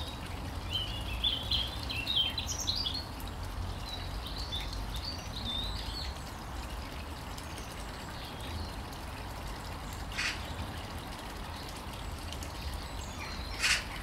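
Small garden birds chirping and twittering in the first few seconds, over a steady low rumble. Two short, sharp clicks follow, one about ten seconds in and a louder one near the end.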